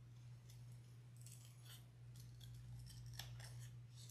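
Small snips cutting a resin craft eye out of its sheet: a string of faint, irregular snips.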